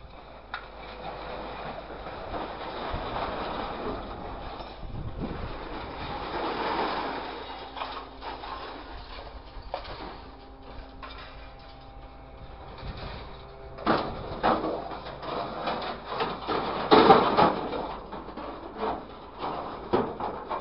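Hydraulic knuckle-boom crane on a grapple truck working, a steady mechanical hum with a held pitched tone for a few seconds in the middle. Scrap metal and wire in the orange-peel grapple scrape and clatter, with the loudest knocks about 14 and 17 seconds in.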